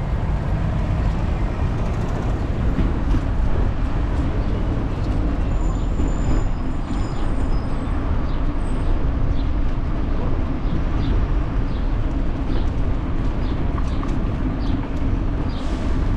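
Steady low rumble of a bicycle rolling over brick paving, with faint high chirps a few seconds in.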